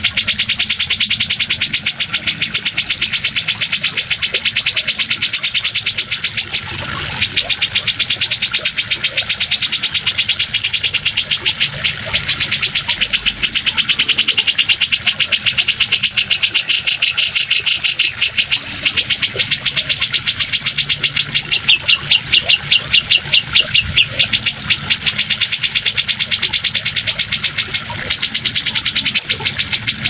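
Cucak jenggot (grey-cheeked bulbul) song: a rapid, continuous high-pitched pulsing trill, breaking briefly about seven seconds in, over a low steady rush of water.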